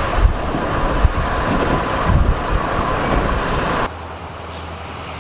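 Car driving noise, a loud steady rush of road and wind with low rumble, that drops suddenly about four seconds in to a quieter steady low hum.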